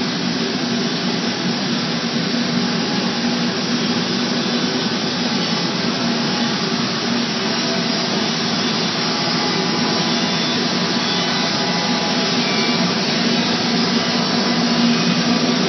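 Biesse CNC router running with a steady mechanical whir and hum.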